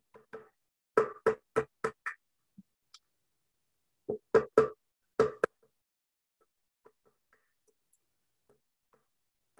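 Hammer tapping small nails into a wooden board: a quick run of about five strikes, a pause, then three more strikes and two more.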